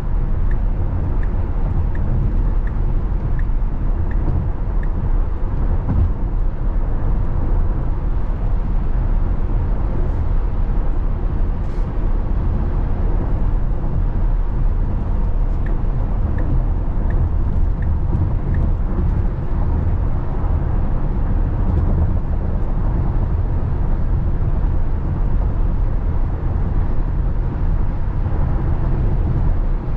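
Steady tyre and wind noise inside an electric Tesla Model X cabin at freeway speed, a low even rumble with no engine sound. Twice a faint, even ticking of the turn signal runs for a few seconds, about one and a half ticks a second, as the car changes lanes.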